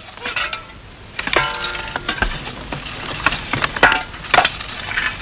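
A series of sharp clicks and knocks at uneven intervals, with a short held tone about a second and a half in.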